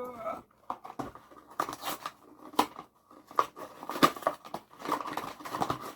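A small cardboard blind box and the plastic bag inside it being opened by hand: irregular crinkling, tearing and sharp clicks.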